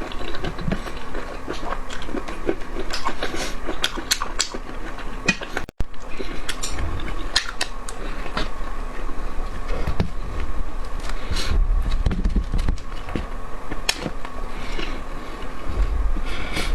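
Close-up eating sounds: chewing and biting into food, with many sharp wet smacks and clicks at irregular intervals over a faint steady hum. The sound cuts out completely for a moment about six seconds in.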